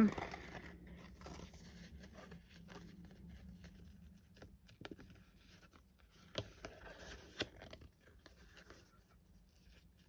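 Faint rustling of cardstock and twine as natural twine is wound around a card panel, with a few soft clicks in the second half.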